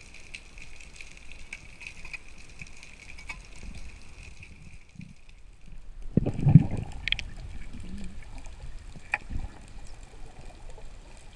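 Muffled underwater water noise picked up by a diving camera as a spearfisher swims up off the rocky bottom: low rumbling and gurgling, with a louder surge about six seconds in and a few sharp clicks. A faint steady high whine runs through the first half and stops.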